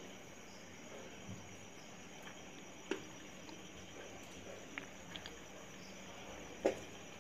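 Faint clicks and taps of a spoon and bowl against the aluminium idli mould plates while idli batter is spooned into the cups, a few scattered knocks with the loudest near the end, over a steady faint hiss.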